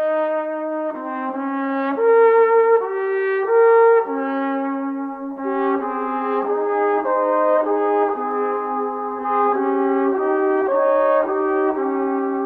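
Background music played by a brass ensemble of trumpets, trombones and horns, in held chords that change every second or so, with no percussion.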